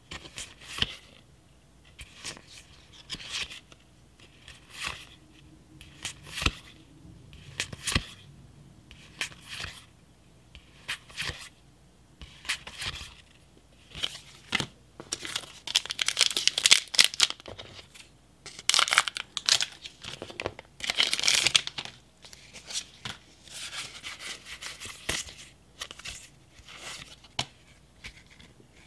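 Pokémon trading cards sliding and flicking against each other as they are moved one at a time from the front to the back of a stack, giving a short swish roughly once a second. In the second half there are a few longer, louder rustles.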